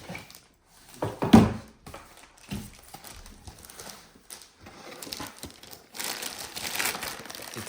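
Unboxing handling noise: packaging and parts being picked up and set down, with scattered knocks and a louder clatter about a second in, then steadier crinkling of packaging material from about six seconds in.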